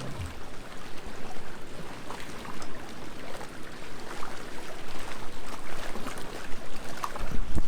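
Small sea waves washing and fizzing on the shore, with a steady hiss and many small crackles of water. Near the end, a low rumble of wind on the microphone comes in.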